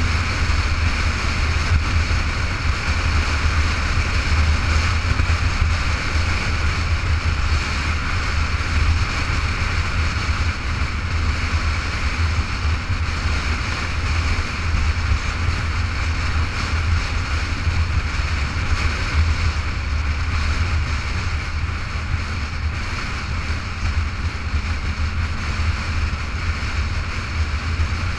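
Motorcycle riding at a steady cruising speed, with a steady low wind rumble buffeting the camera microphone over the engine and road noise.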